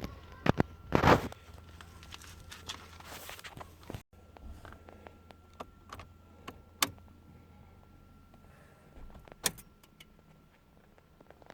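Low hum of a car engine running, overlaid with a series of sharp clicks and knocks, the loudest group about a second in. The hum drops away suddenly about four seconds in, leaving only occasional clicks over a faint background.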